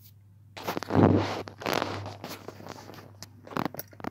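Rustling and rubbing handling noise, loudest about a second in, followed by a couple of sharp clicks near the end.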